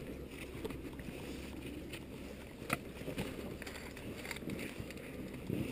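Wind rumbling on the camera's microphone, with faint rustling and scraping of a climber moving over rock, and one sharp click about two and a half seconds in.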